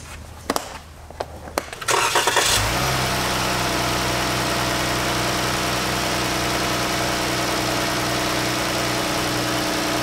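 A few light plastic knocks and clicks, then about two seconds in the 2014 Jeep's V6 is cranked and catches almost at once, settling into a steady idle. It is running on a newly fitted cylinder 5 fuel injector that replaced one faulty injector behind a misfire code.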